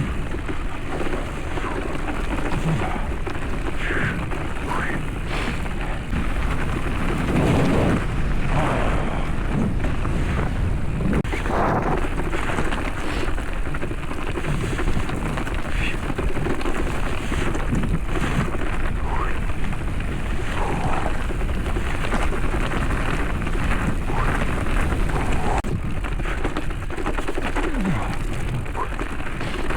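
Steady wind rumble on the microphone mixed with the rattle and rumble of a mountain bike riding a rough trail.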